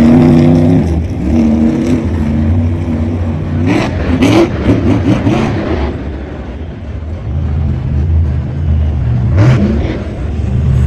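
Monster truck's supercharged V8 engine running and being revved, with quick rises in pitch about four seconds in and again near the end.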